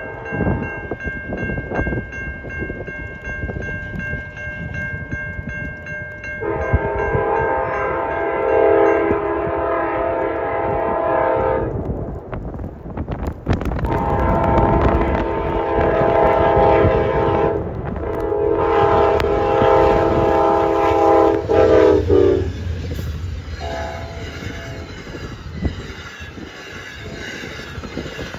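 Amtrak passenger train sounding its multi-note air horn: a fainter steady horn chord at first, then three loud long blasts of about four to five seconds each, with the train rushing and rumbling along the rails throughout.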